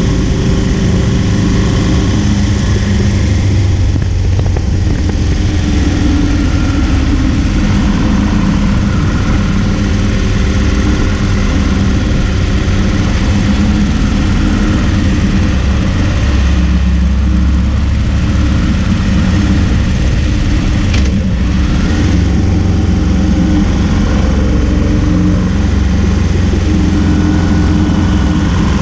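Harley-Davidson Road King's V-twin engine running as the motorcycle rides along, heard from a camera mounted low by the front wheel, with wind and road noise. The engine note shifts with speed and deepens a little past the middle.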